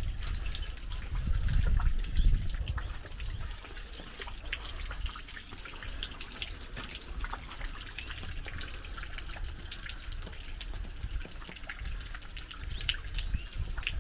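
Rain falling, with many scattered drops pattering and dripping close by, over a steady hiss. A low rumble comes and goes, strongest in the first couple of seconds.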